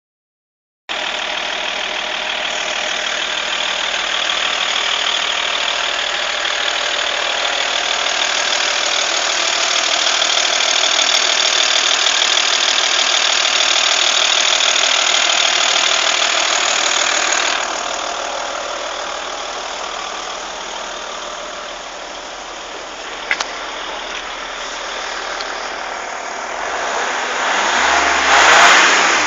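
Car engine running steadily. About two-thirds through it settles a little quieter, a single click sounds a few seconds later, and near the end it begins to rev up.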